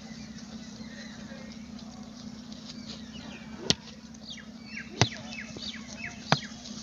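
Three sharp knocks about a second and a quarter apart, over a steady low hum and many short, high, falling chirps.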